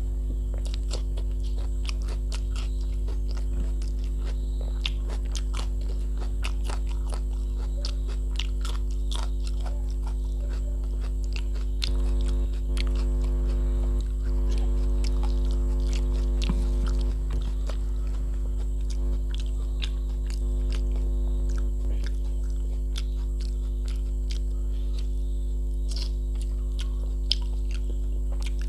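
Close-miked chewing and wet mouth sounds of a person eating rice and mutton curry by hand, with crisp crunches of raw cucumber, over a steady electrical hum.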